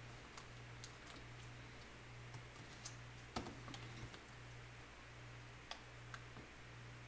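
Faint small clicks and ticks of a laptop keyboard's flat ribbon cable being worked into its connector on the motherboard, with one sharper click about three and a half seconds in.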